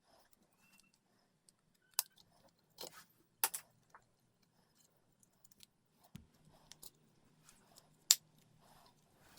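Scattered sharp clicks and taps of small plastic parts being handled during a toy robot teardown, loudest about two, three and a half and eight seconds in, with soft rustling between.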